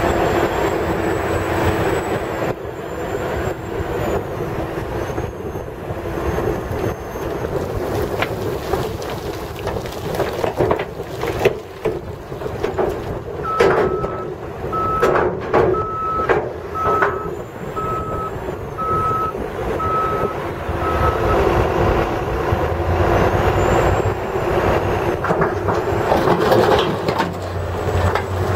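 Heavy diesel machinery working: a Cat 980H wheel loader's C15 engine runs steadily under load. Near the middle, rock and fill crash into a steel dump truck bed in a run of sharp knocks. Then the loader's reverse alarm beeps steadily, about one and a half beeps a second, for several seconds, and starts again at the very end.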